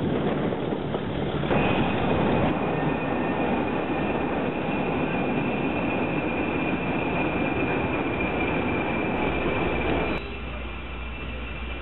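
British Rail Class 20 diesel locomotive running into a station, with a steady high-pitched squeal over the rumble of the train. For the first second or so there is only rushing ride noise. About ten seconds in it drops to a quieter, low steady drone.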